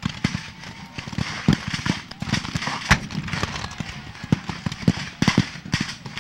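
Scattered musket fire from Civil War reenactors firing blanks: many irregular shots in quick succession, with one louder report about three seconds in.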